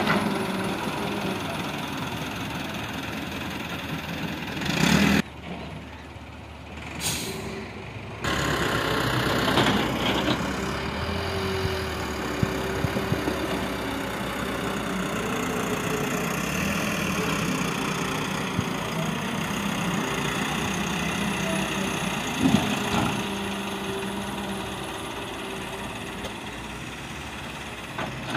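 Diesel engine of a John Deere 595D wheeled excavator running steadily as it digs and dumps soil, with a few sharp knocks. The sound drops away briefly about five seconds in and comes back about three seconds later.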